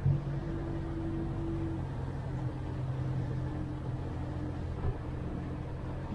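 Boat's outboard motor running at low speed, a steady hum heard from inside the pilothouse cabin, with a short thump right at the start.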